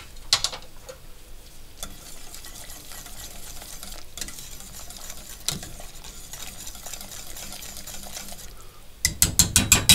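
Wire whisk stirring a thin brown vinegar sauce in a stainless steel pot, making a steady swishing scrape for several seconds. Near the end comes a quick run of about seven loud metallic clicks of the whisk against the pot.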